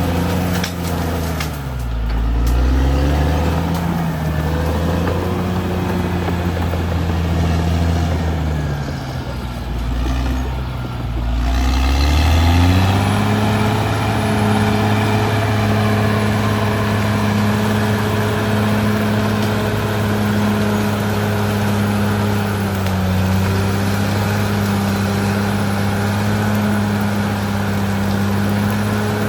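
Caterpillar D6R XL bulldozer's diesel engine running under changing load: its pitch dips and climbs back several times, then settles to a steady speed about halfway through.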